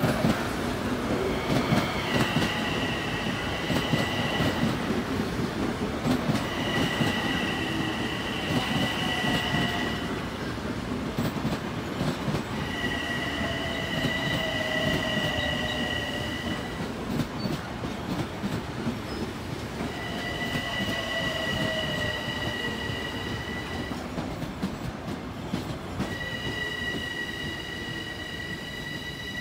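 Long Island Rail Road electric multiple-unit train rolling past, a steady rumble with wheels clicking over rail joints. A high wheel squeal comes and goes in five spells of a few seconds each.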